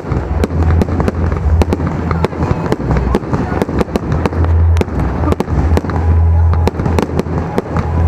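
Aerial fireworks going off: a rapid, irregular string of sharp bangs and crackles over a constant deep rumble.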